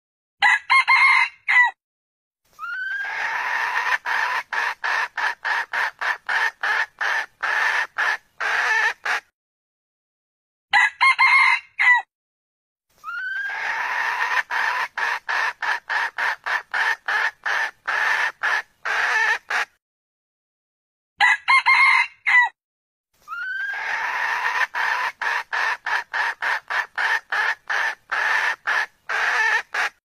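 Red junglefowl calling: a short, clipped crow about a second and a half long, followed by a long run of rapid clucks, about three a second, that opens with a rising note. The same crow-and-cluck sequence repeats three times, about ten seconds apart, as a loop.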